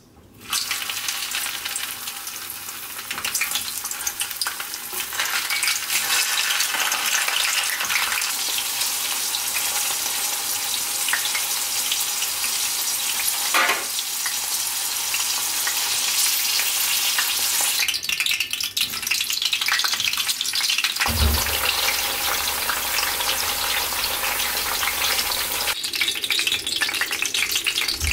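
Okra pods deep-frying in hot oil at about 170 °C: a steady crackling sizzle that starts abruptly as they go into the oil. Later, slices of eggplant frying in the same oil.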